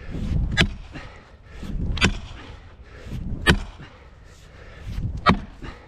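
Repeated hard blows of a swung striking tool on the log, four sharp cracks about one and a half seconds apart.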